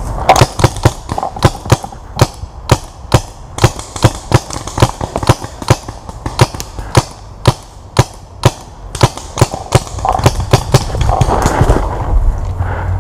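Paintball marker firing a long string of sharp pops, about two to three shots a second and unevenly spaced, stopping near the end.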